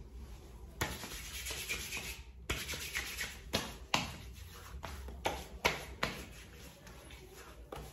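Hands rubbing post-shave balm into freshly shaved skin on the face, a series of short rubbing strokes of palms against skin.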